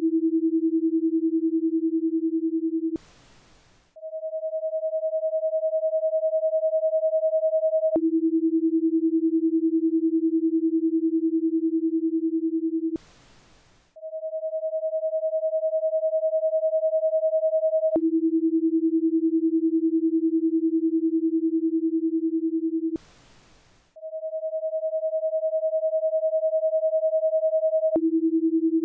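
Electronic breathing-pacer tones in a ten-second cycle. A steady higher tone, about an octave above the other, lasts four seconds and marks the inhale. A lower tone lasts five seconds and marks the exhale. Then comes a pause of about a second with only faint hiss, the breathing space. The cycle repeats about three times.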